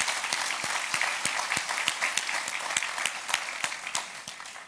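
Audience applauding, many hands clapping, thinning out and dying away near the end.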